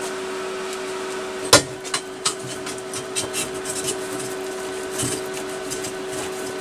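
Metal exhaust baffle pipe being handled and test-fitted into a motorcycle exhaust: one sharp metallic knock about a second and a half in, then lighter clinks and small ticks, over a steady hum.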